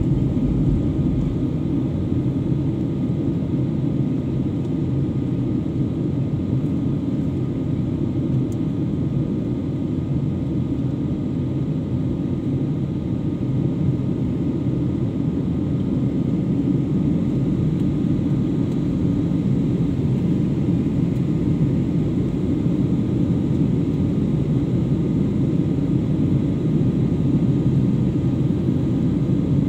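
Jet airliner cabin noise in flight: a steady low rumble and rush of the engines and airflow heard inside the cabin, with a few faint steady whining tones above it.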